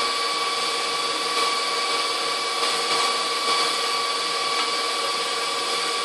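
KitchenAid 6-quart bowl-lift stand mixer whipping egg whites at low speed: a steady motor whine.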